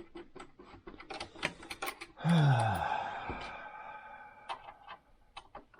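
Quick clicking and tapping of plastic parts as the sewing machine's plastic housing is handled and pried at. About two seconds in comes a sudden loud sound with a falling groan-like tone and a ringing that fades away over about two seconds.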